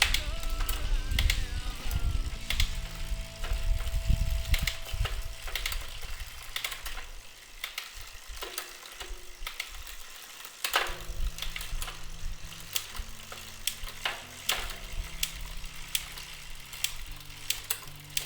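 Mountain bike drivetrain worked by hand: the cranks turn, the chain runs and the rear hub ratchets, with irregular sharp clicks as the Shimano Zee rear derailleur shifts through the gears. There is a heavier rumble in the first few seconds, and background music underneath.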